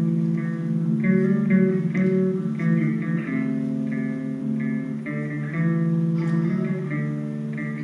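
Guitar playing melodic licks: quick single notes picked over held low notes.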